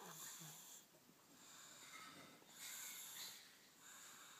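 A baby snoring in sleep: noisy breaths coming about once a second, with two short low grunts right at the start.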